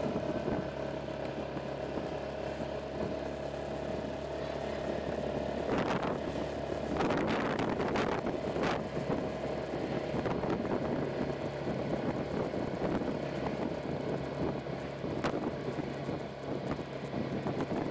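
Honda PCX scooter's single-cylinder engine running steadily while riding along a street, with wind buffeting the microphone in gusts about six to nine seconds in.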